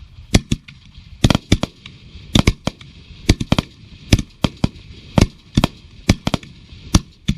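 Fireworks going off: a run of sharp, irregular bangs, about two a second, some in quick pairs.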